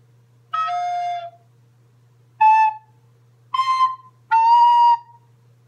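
White plastic recorder playing four separate notes with short pauses between them. The first note is the lowest and the third the highest.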